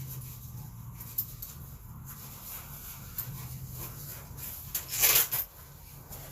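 A sleeping bag's fabric rustling as a person shifts inside it, in short scattered rustles with one louder rustle about five seconds in.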